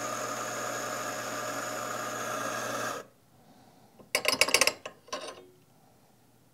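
Mahlkönig E65S GBW espresso grinder's motor and 65 mm flat burrs running, grinding coffee beans into a portafilter with a steady hum and rasp, and cutting off abruptly about three seconds in when the programmed dose weight is reached. About a second later comes a short clatter of metal clicks and knocks as the portafilter is lifted off the grinder's forks and set down.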